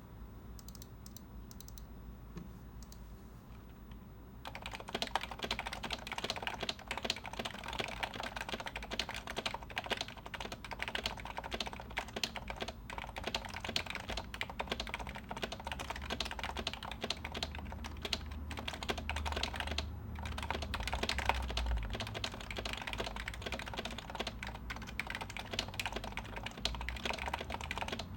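Continuous fast typing on a 2014 HHKB Pro 2 Topre keyboard fitted with 35 g domes, Des #5 silencing rings, MX sliders and cherry-profile GMK keycaps. The keystrokes are damped, which the owner finds almost a bit too silenced. The typing starts about four and a half seconds in, after a faint hum.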